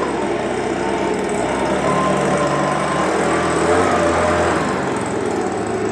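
Stihl BG86 handheld leaf blower's two-stroke engine running steadily while blowing sawdust.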